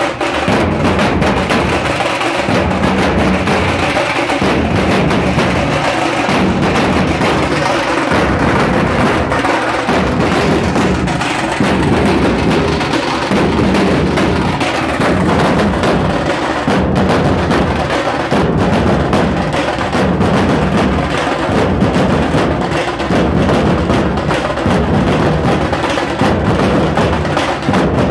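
A dhol-tasha troupe drumming together: many large barrel dhol drums struck with sticks in unison, in a loud, steady, repeating rhythm.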